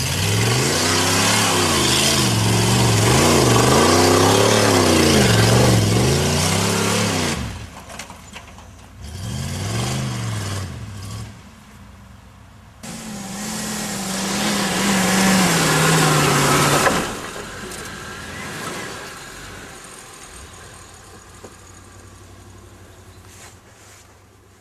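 Pickup truck engine revved hard in repeated waves, its pitch rising and falling again and again, then a second short burst of revving. After that comes one long pull with the pitch slowly falling, and the engine then fades away into the distance.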